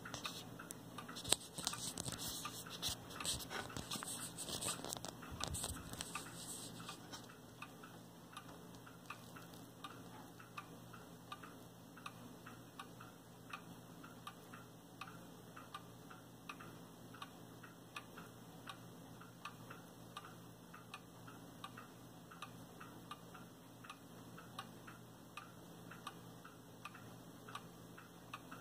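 Brass clock movement ticking steadily and evenly as it runs with its wear plate turned over. Over the first six seconds there is handling noise: irregular knocks and rustling, with one sharp knock about a second in.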